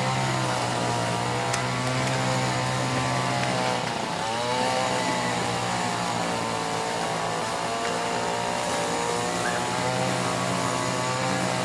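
A small engine running steadily, its pitch sagging and recovering a couple of times.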